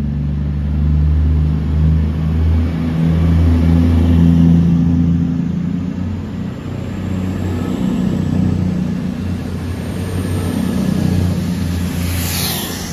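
Class 220 Voyager diesel multiple unit pulling away and passing close by, its underfloor Cummins diesel engines running under power with a low, steady hum that swells and eases as the carriages go past.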